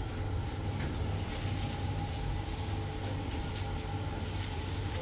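Steady low mechanical hum with a faint, steady high whine over it.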